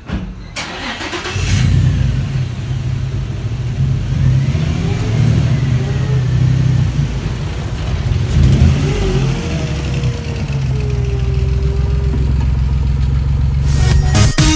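Nissan 350Z's 3.5-litre V6 engine running with a steady deep rumble, starting about a second in.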